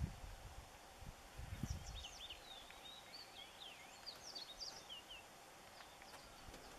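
Faint birds chirping in many short, quick rising and falling calls, with a brief low rumble about one and a half seconds in.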